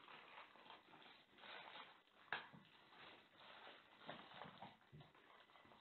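Faint crinkling and rustling of thin plastic bags being handled and torn open to get at balloons, with one short sharp crackle about two seconds in.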